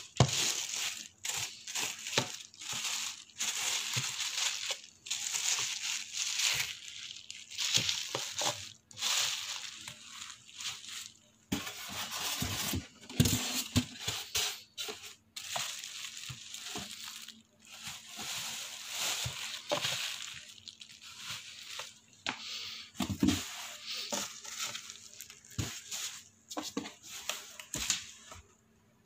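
Plastic packaging wrap crinkling and rustling in irregular bursts as it is handled, with a few sharp knocks.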